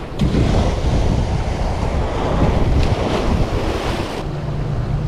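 Ocean surf breaking and washing over rock boulders, with wind rumbling on the microphone.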